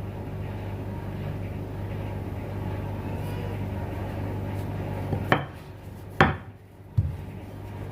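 Three sharp knocks of kitchen utensils against a work surface, the second and last a little apart, over a steady low hum.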